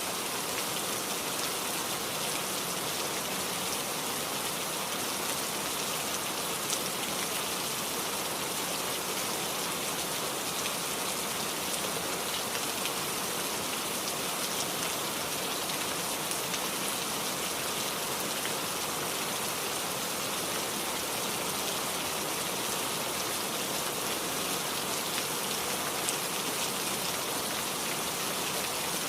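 Heavy rain falling steadily, a dense even hiss with scattered individual drops ticking on a surface.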